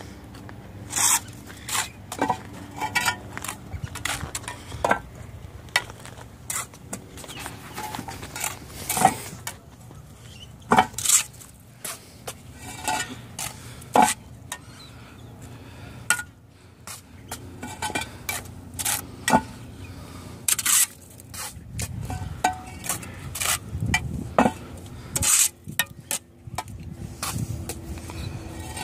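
Mason's trowel scraping mortar and clinking against concrete blocks as blocks are laid, in quick, irregular strikes and scrapes.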